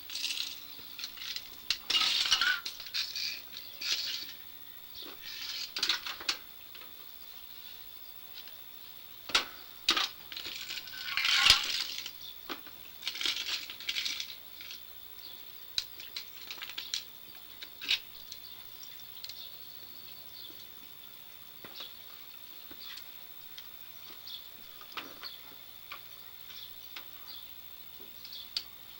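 Scattered light clinks, taps and rustles of hand work on a riding mower's fuel parts, with a faint steady high tone underneath.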